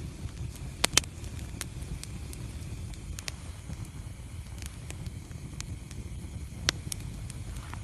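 Wood fire burning in a fireplace: a steady low rumble of flames with scattered crackles, and sharp pops twice about a second in and once more near the end.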